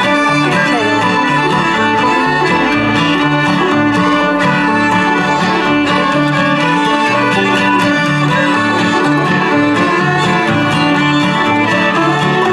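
Bluegrass string band playing live: fiddle carrying the melody over strummed acoustic guitar.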